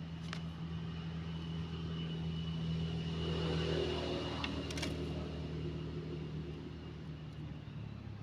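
A motor engine running steadily as it passes, growing louder to a peak about three to four seconds in and then fading. A thin steady high-pitched tone sounds underneath.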